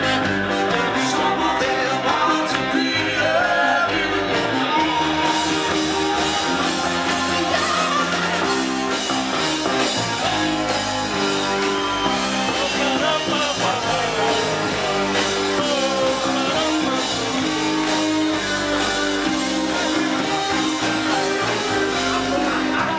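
Indie rock band playing live, with guitar and a singing voice, picked up on a compact camera's built-in microphone.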